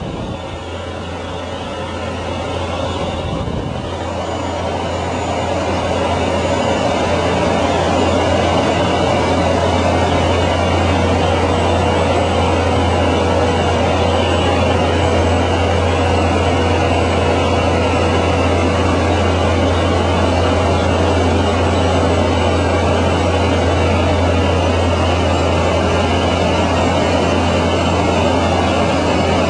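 Small plane's engine droning steadily, heard inside the cabin during the descent to land. It swells over the first several seconds, then holds level.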